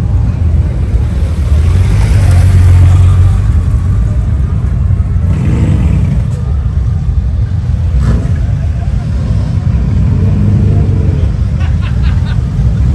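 Motorcycle engines rumbling at low speed in street traffic, loudest about two to three seconds in.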